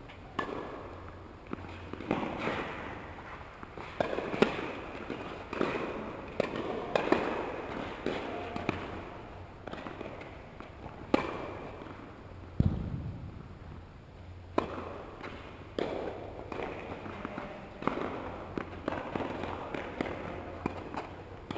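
Tennis balls struck by rackets and bouncing on an indoor hard court: sharp pops at irregular intervals, about one every second or two, echoing around a large hall, with one duller thud about halfway through.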